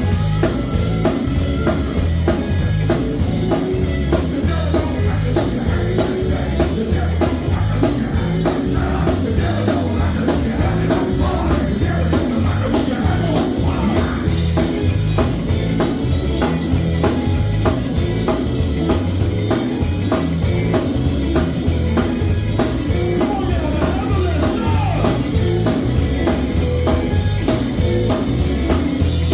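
Live gospel music: a drum kit keeps a steady beat over a moving bass line, with singing.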